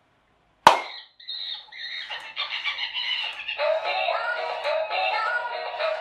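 A single sharp hand clap less than a second in, which sets off a sound-activated animatronic toy monkey: it starts playing its built-in song with synthesized singing, getting fuller after a few seconds as its legs begin to dance.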